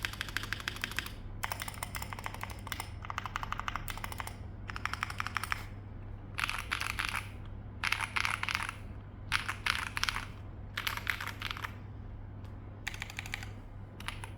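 Typing on a mechanical keyboard with Voyager Lightyear Press Play switches and GMK Striker keycaps, its foam-dampened, O-ring-mounted build giving fast runs of keystrokes. The typing comes in bursts of a second or so with short pauses between them.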